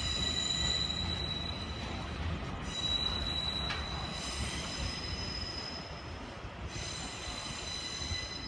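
TRA TEMU2000 Puyuma tilting electric train pulling away on a curve, its wheels squealing in a steady high whine that drops out briefly a couple of times, over the low rumble of the train.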